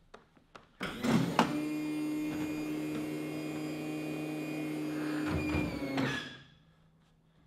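Hydraulic landing-gear pump running steadily for about five seconds as the custom nose gear is lowered. It comes in about a second in with a knock or two and then stops.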